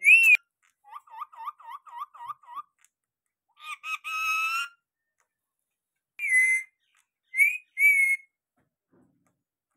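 Rose-ringed (Indian ringneck) parakeet calling: a sharp screech, a quick run of about eight short chattering notes, a longer harsh call, then three more screeches near the end.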